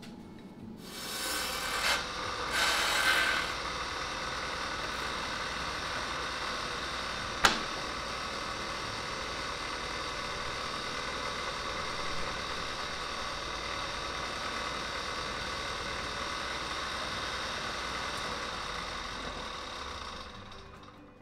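Homecraft table saw running. Its blade cuts through 3/4-inch plywood twice in the first few seconds, then it runs free with a steady hum, with one sharp click about seven seconds in. It winds down near the end.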